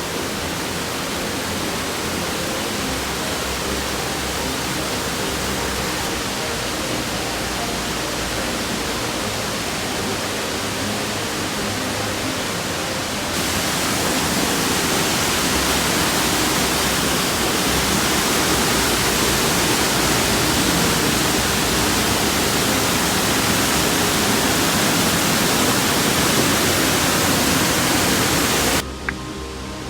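Waterfall, a steady rush of falling water that steps up louder a little before halfway through and cuts off abruptly about a second before the end, where music takes over.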